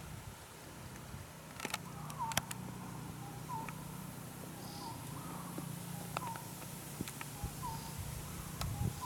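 A bird calling over and over, a short falling note every second or two, over a steady low hum, with a couple of sharp clicks about two seconds in.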